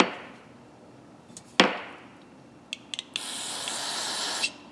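Two sharp knocks about a second and a half apart, then an aerosol can of carburetor cleaner spraying through its straw into a ratchet head in a steady hiss for about a second and a half, flushing out dirt. The spray cuts off suddenly.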